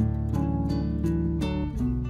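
Background music of acoustic guitar, notes plucked a few times a second.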